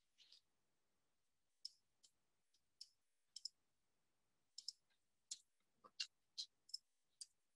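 Faint, scattered clicks of a computer keyboard and mouse during code editing: about fourteen single clicks at irregular spacing, some in quick pairs.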